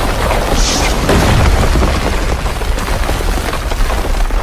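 Earthquake shaking a room: a loud, continuous low rumble with dense rattling and clicking, a little louder about a second in.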